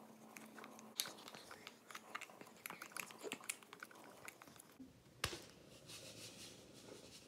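Metal spoon stirring soapy water in a clear plastic tub, with faint irregular clicks and scrapes against the sides. There is one sharper knock about five seconds in.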